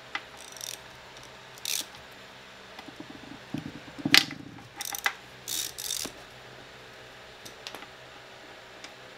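Scattered metal clicks, scrapes and rattles of a hand tool working a pin out of a Toyota E153 transaxle's aluminium case, the sharpest click about four seconds in.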